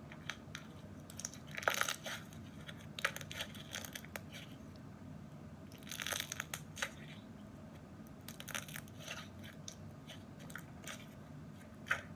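Slime crackling as it is pressed and stretched by hand: irregular clusters of sharp crackles and pops, the loudest about two seconds in and again about six seconds in.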